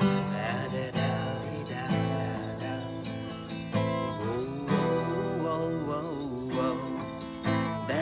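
Acoustic guitar played solo, strummed chords under a picked melody line, with a strong chord strike every second or so.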